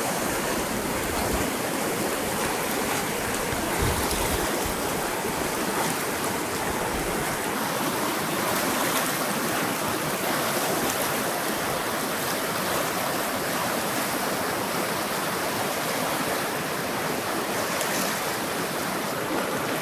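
River water rushing over rapids, a steady, even rush.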